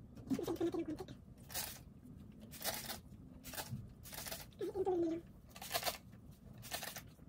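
Trigger spray bottle squirting water onto hair in several short hissing sprays, about a second apart.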